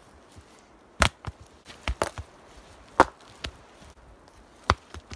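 Rocks being set down one after another on soft forest ground, about five sharp knocks spread over a few seconds.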